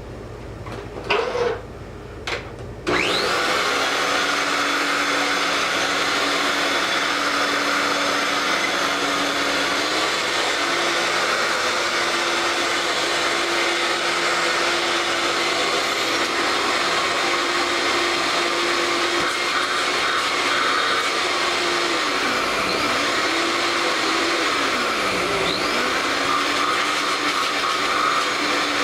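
Early-1990s Regina Housekeeper Plus upright vacuum cleaner. After a few clicks it switches on about three seconds in, and its two-speed motor runs with a steady whine on low speed. About ten seconds in the whine steps up in pitch as the motor goes to high speed, and in the last several seconds the pitch dips and recovers a few times.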